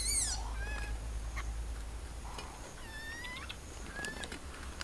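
A few short, high animal chirps, each rising and falling in pitch: one at the very start, scattered ones after it, and a small cluster about three seconds in.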